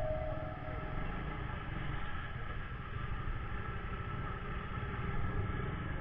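Steady low rumble of a motor vehicle running, engine and road noise.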